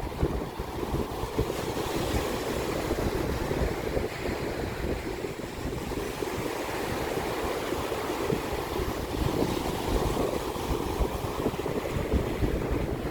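Sea waves washing ashore in a continuous rush, with wind buffeting the microphone in a low, fluttering rumble.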